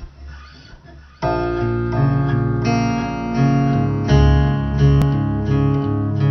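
Acoustic guitar playing the slow chord intro of a song, starting about a second in, with the chords changing every second or so.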